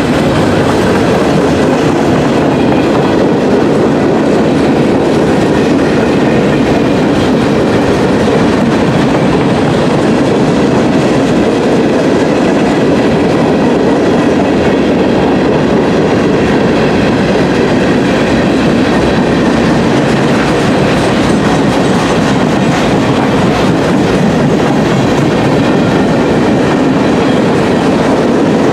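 CSX freight train rolling past close by: a loud, steady rumble of wheels on rail that holds unbroken, with no horn.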